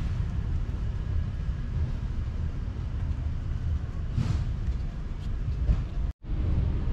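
Steady low rumble of outdoor background noise, with a brief hiss about four seconds in and a split-second dropout to silence just after six seconds.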